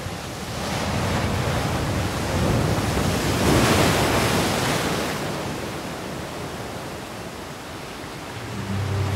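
Sea surf: waves washing in a steady rush that swells to a peak about halfway through and then eases off.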